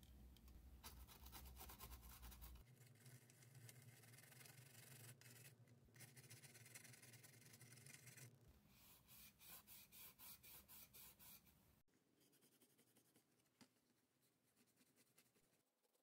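Faint rubbing and scratching of a cotton swab and cloth scrubbed over the plastic casing of a Sony Discman portable CD player. It includes a run of quick strokes, about three a second, a little past the middle, and grows fainter near the end.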